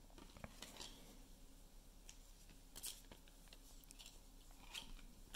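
Near silence: room tone with a few faint, brief rustles and clicks.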